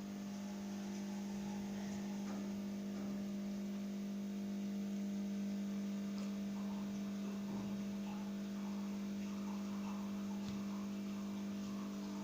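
A steady low hum, a single unbroken tone with overtones, indoors in a small room.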